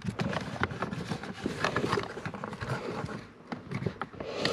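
Irregular clicks, knocks and rustling of hands working at the plastic under a car's dashboard, trying to release the fuse box from its clips.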